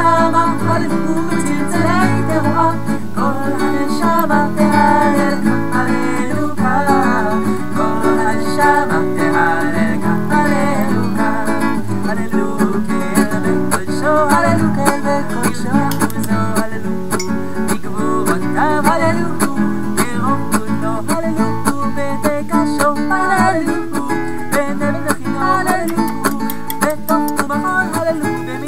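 Background music led by strummed acoustic guitar, with a melody line over it.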